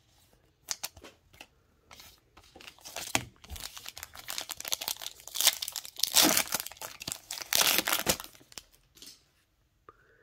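Foil trading-card pack wrapper being torn open and crinkled, after a few light clicks of cards being handled. The tearing and crinkling is loudest about six to eight seconds in.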